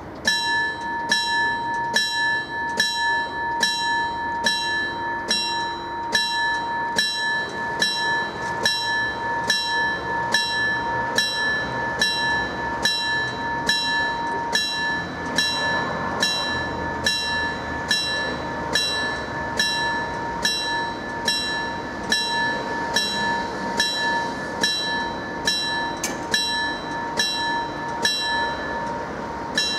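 Level-crossing warning bell ringing with even, rapid strokes over a steady ringing tone while the crossing barriers come down. It stops abruptly near the end, once the barriers are closed.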